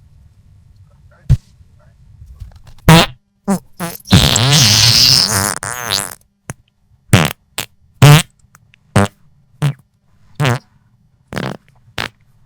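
Comedy fart sound effects: a string of short farts and one long, wavering fart of about two seconds starting about four seconds in.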